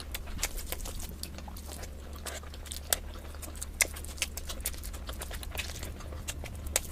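Close-miked eating: someone chewing food, with many quick wet mouth clicks and smacks, a few sharper ones standing out, over a steady low hum.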